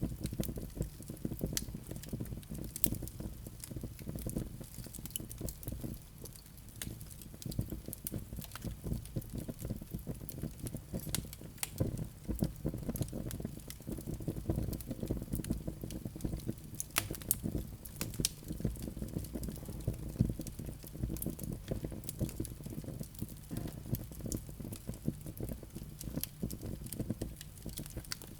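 Wood fire crackling: a dense, irregular run of small pops and snaps over a steady low rumble, with a few sharper, louder snaps now and then.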